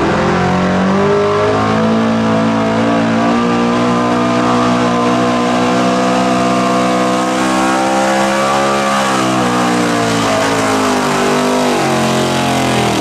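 Gas-engined pulling pickup truck running at full throttle under heavy load as it drags a weight-transfer sled; the engine's pitch climbs at the start, holds high and steady, then sags slightly and picks up again near the end.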